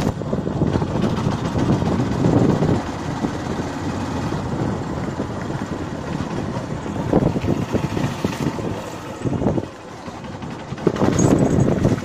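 Motorcycle running as it is ridden slowly along a road, a steady uneven rumble. It quiets briefly near the end, then picks up again.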